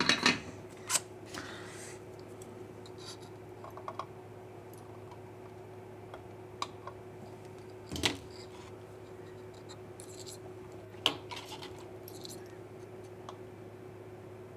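Sharp small clicks and scratches of a wire lead and small hand tools being handled over a circuit board. There is a cluster of them at the start and single clicks about eight and eleven seconds in, over a steady low hum.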